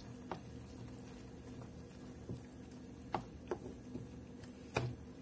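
Wooden spoon stirring moringa leaves in a simmering stainless steel saucepan, with a few light knocks of the spoon against the pot over a faint steady hum.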